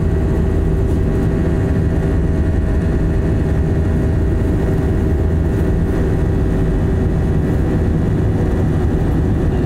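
Airliner cabin noise: the underwing jet engines and rushing air make a steady, unbroken deep rumble with a few faint steady tones over it, as the jet climbs after takeoff.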